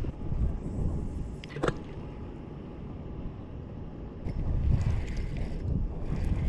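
Wind buffeting the microphone as a steady low rumble. There is one sharp click about a second and a half in, and faint clicks and rustling from handling the rod and reel near the end.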